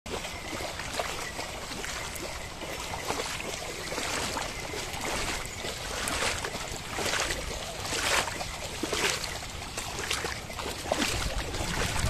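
Muddy water sloshing and splashing as a pair of bulls wade through a flooded paddy field dragging a plough, with irregular splashes from their hooves.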